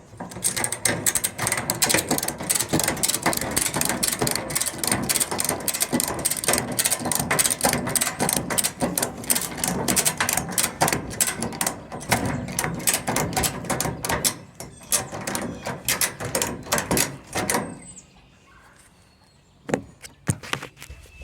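Ratchet strap buckle being cranked over and over, its pawl clicking rapidly as the strap is drawn tight to lever a wrench on a stuck nut. The clicking stops about 17 seconds in, with a few more clicks near the end.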